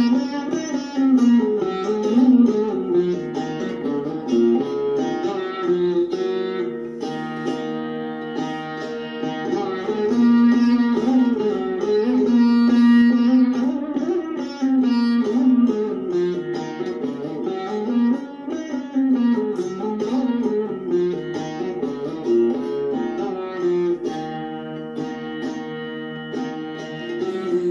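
Solo Saraswati veena playing a Carnatic melody, plucked notes that slide and bend in pitch as the fretting hand deflects the strings.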